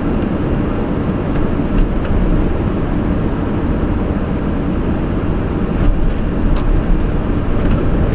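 Airbus A340 landing rollout heard from the cockpit: a loud, steady rumble of engines and wheels on the runway just after touchdown, with a few brief clicks.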